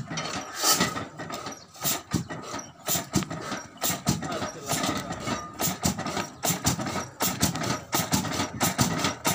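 Old Ruston Hornsby-type single-cylinder diesel engine catching after hand-cranking, firing in separate beats that come faster as it picks up speed.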